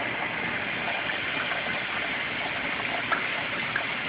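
Steady rush of water from an aquarium filter, an even gushing hiss, with two short sharp ticks about three seconds in and a little after.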